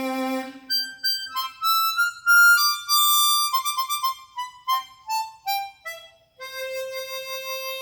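Suzuki SCX chromatic harmonica, fitted with a Kettlewell frictionless mouthpiece slider and an airtightened comb, played as a single-note melody. A run of notes climbs to a high peak about two and a half seconds in, steps back down, and settles on a long held note near the end.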